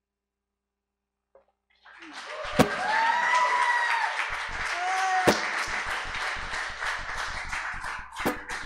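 Audience applauding and cheering at the end of a song, with whoops over the clapping. It starts about two seconds in, after dead silence.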